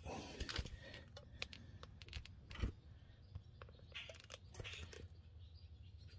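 Faint, irregular clicks and scrapes of a wrench and bolts on metal as the torque-converter bolts are fitted through the flexplate.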